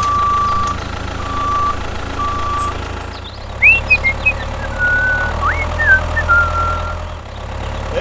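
A vehicle engine running steadily while a reversing alarm beeps three times, followed by a run of short sliding chirps.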